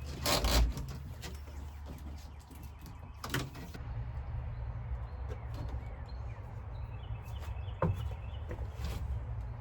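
A loud knock or thud about half a second in and another at about three seconds, over a steady low rumble, with short high chirps like small birds later on.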